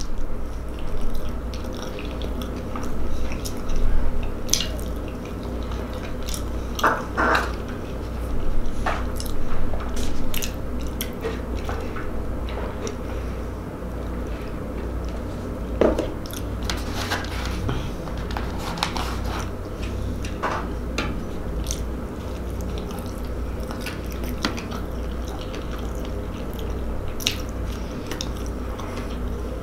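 Close-miked eating sounds: biting and chewing fried chicken rings and a slider burger, with scattered wet mouth clicks over a steady low hum.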